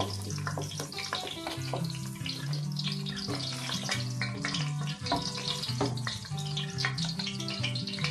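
Hot oil sizzling and crackling in a wok around frying shallots, garlic and candlenuts, over background music with a low, stepping bass line.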